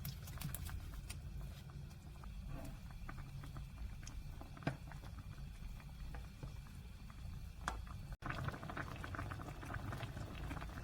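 Spicy braised chicken stew with beef large intestine boiling in its pot: a steady low rumble with dense bubbling and popping, and a couple of sharper clicks.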